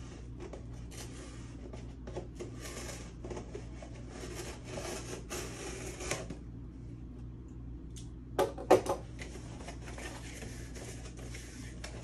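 A knife slitting the packing tape on a cardboard box: a scratchy, crackling rasp for about six seconds. A few loud knocks follow a little past the middle as the box is handled and its flaps are opened, then lighter rustles and clicks.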